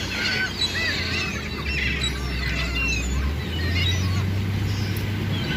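A flock of gulls calling over one another: many short, overlapping squawking cries, with a steady low hum underneath.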